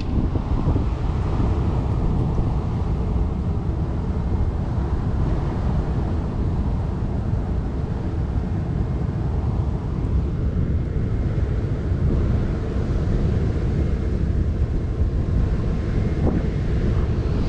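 Wind buffeting the microphone: a steady, loud low rumble that rises and falls slightly.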